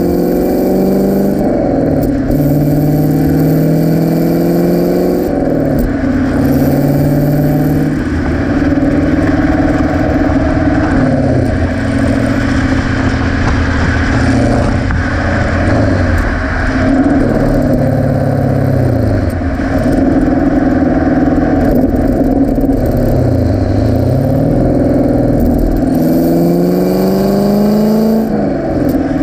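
Exhaust note of a Camaro SS 1LE's 6.2-litre V8, heard right at the tailpipe of GM's NPP active exhaust in touring mode, under light throttle through upshifts and downshifts. The engine pitch climbs and drops several times as the gears change, over a low rush of road and wind noise.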